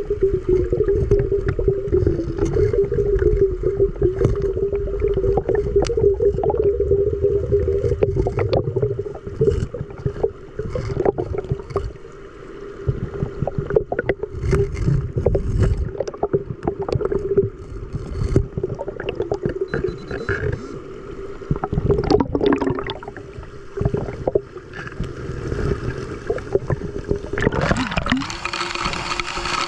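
Muffled water sound, gurgling with many small knocks and scrapes over a steady, slightly wavering hum. A louder rush of water comes near the end.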